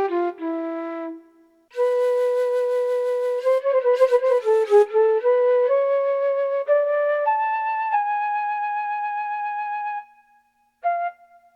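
Flute voice of a Roland E-X30 arranger keyboard playing a solo melody with no accompaniment. Short notes and quick trills give way to a long held note, with breath noise on some notes.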